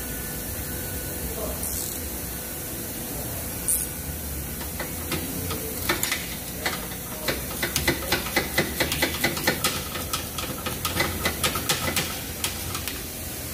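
Steady background hiss, then from about six seconds in a long run of quick metallic clicks, about four or five a second, from a ratchet turning the new lower control arm's mounting bolt.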